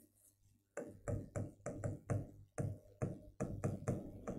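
Marker pen writing on a whiteboard: a string of short taps and scratches of the tip as each stroke of the word goes down, starting about a second in.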